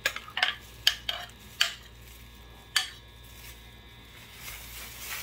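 A metal spoon clinking against a glass baking dish while thick yogurt-tahini sauce is poured and spread over toasted bread: about six sharp clicks in the first three seconds, then a soft scraping near the end.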